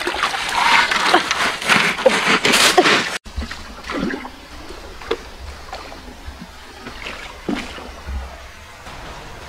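Water splashing and sloshing as a person wades in a shallow river, cutting off suddenly about three seconds in. After that comes a quieter steady background with a few faint short chirps.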